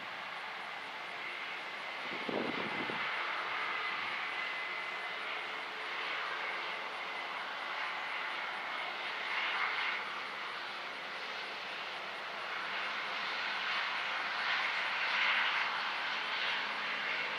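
Harvest machinery running steadily: a diesel engine's drone under a broad mechanical hiss, with a steady high whine throughout. There is a brief low thump about two and a half seconds in.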